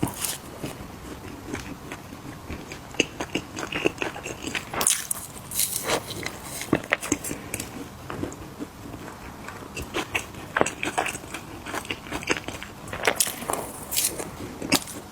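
Close-up crunching and chewing of small crisp cookies, with repeated sharp crackly bites in clusters.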